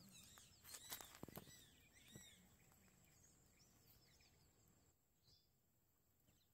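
Quiet outdoor ambience near silence: a few short, faint bird chirps and a couple of soft clicks in the first two seconds, then only a faint hush.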